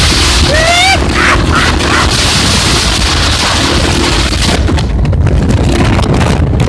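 Heavy wind buffeting the microphone of a phone held on a moving motorcycle, a constant loud rush and rumble. About half a second in, a short rising whoop from one of the riders.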